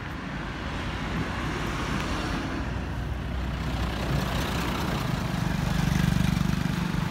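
Truck driving past close by on a town road, its engine growing steadily louder and loudest about six seconds in, over general road traffic noise.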